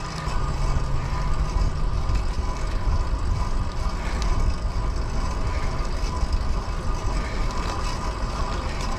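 Wind buffeting the microphone with tyre and road noise from a fixed-gear bicycle rolling on pavement: a steady, fluttering rumble.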